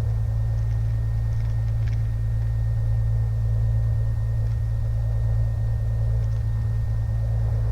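Cessna 182M's six-cylinder Continental O-470 engine and propeller running steadily at taxi idle, around 1,000 RPM, heard from inside the cabin as an even low drone. A faint steady high whine sits under it.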